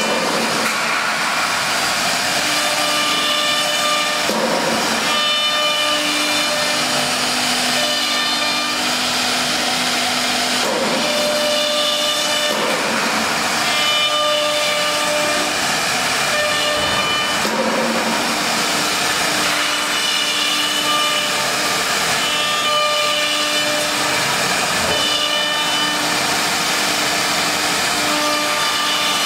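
Three-spindle CNC router carving a wooden door panel: a steady hiss of cutting and dust extraction, with high spindle whines that come and go every few seconds as the bits move through the cut.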